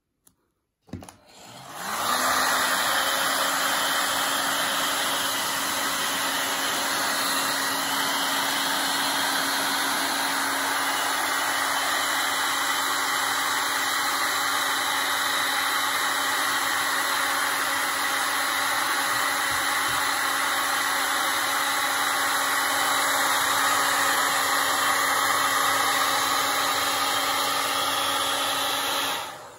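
Handheld hair dryer blowing on freshly painted stones to dry the wet paint. It switches on about a second in and comes up to speed, then runs steadily with a low hum under the rush of air, and switches off near the end.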